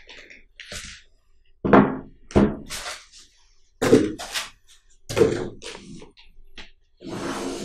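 Handling sounds from a Netgate SG-5100 network appliance in a plastic bag as it is lifted out of foam packing and set on a wooden table. There are several sharp thunks and knocks, then a longer rustle near the end.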